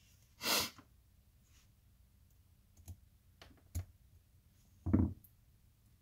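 Faint small metallic clicks as a steel spring bar is worked into the holes of a dual deployant watch clasp. There is a short breathy noise about half a second in and a louder dull thump about five seconds in.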